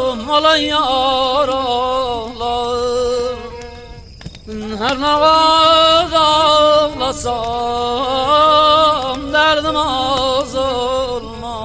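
Slow, sad Qashqai music: a single melodic line of long held notes with vibrato and small ornaments. It breaks off about four seconds in and resumes with a rising slide into the next phrase.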